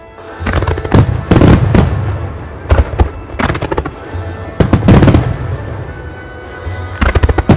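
Aerial fireworks shells bursting in rapid clusters of sharp cracks and booms, each trailing into a low rumbling echo. The heaviest volleys come about a second in, around five seconds in and near the end. Show music plays faintly underneath.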